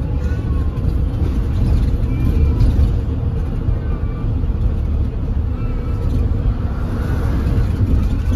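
Inside a moving London double-decker bus: steady engine and road rumble, with a few faint short high squeaks over it.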